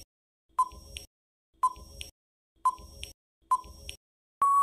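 Quiz countdown-timer sound effect: four short beeps about a second apart, then a longer steady beep near the end signalling that time is up.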